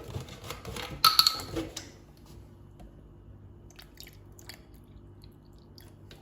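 Kitchen utensils and containers handled while milk and Greek yogurt go into the soup in the blender jug: a loud clink with a brief ring about a second in, then scattered small taps and clicks over a faint steady low hum.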